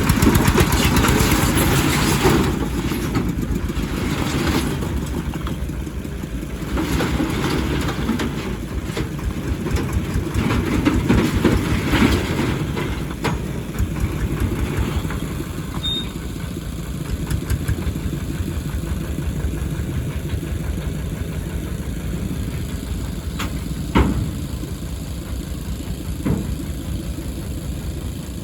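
Excavator's diesel engine running and working under load, swelling louder at times, with a sharp knock about three-quarters of the way through and another a couple of seconds later.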